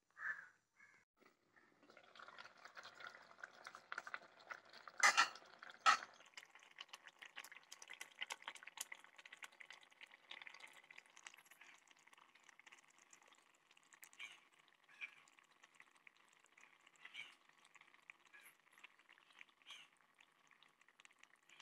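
Coconut gravy simmering and bubbling in a clay pot, with a spoon stirring through it and two loud sharp knocks about five and six seconds in.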